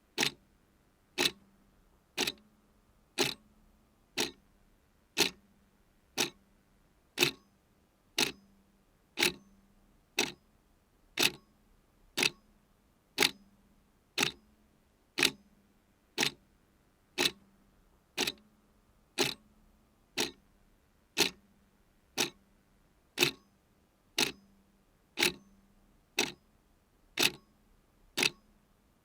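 A clock ticking steadily, one sharp tick each second, evenly spaced.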